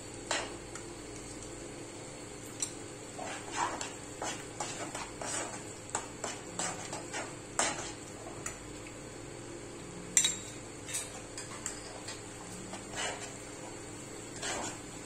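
Metal spoon stirring a thick sauce in a non-stick wok, with irregular clinks and scrapes against the pan; the loudest clink comes about ten seconds in. The sauce is thickening with cornflour slurry.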